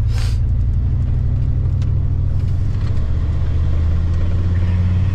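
Engine and road noise heard inside a moving vehicle's cab: a steady low drone whose pitch rises slightly about four seconds in.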